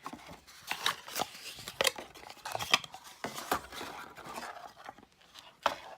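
Small cardboard product box being opened by hand and the bottle slid out: a string of irregular sharp clicks, taps and rustles.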